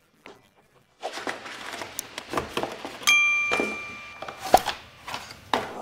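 White cardboard packaging of a tablet box rustling, scraping and knocking as the insert is lifted out and handled. About three seconds in, a bright ding rings out and fades over about a second: the sound effect of an on-screen subscribe-button animation.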